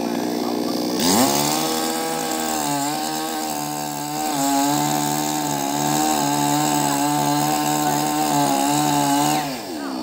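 Chainsaw revved up to full throttle about a second in and held there while cutting into a tree branch, its pitch wavering slightly under load, then dropping back near the end.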